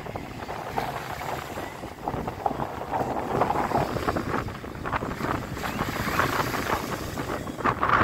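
Wind buffeting the microphone over a choppy sea, with waves breaking and splashing against a concrete sea wall; the wash of the surf grows louder near the end.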